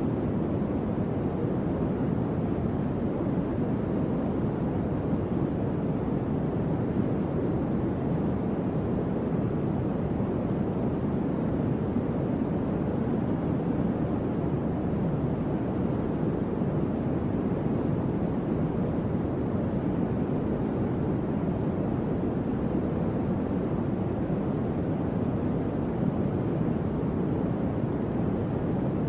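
Electric fan running steadily: an even, low whooshing rush of moving air without changes.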